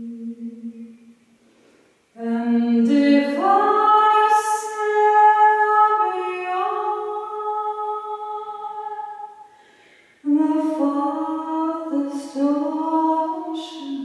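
A woman singing solo and unaccompanied, a slow melody of long held notes in phrases, with short breaks for breath about two seconds in and again near ten seconds.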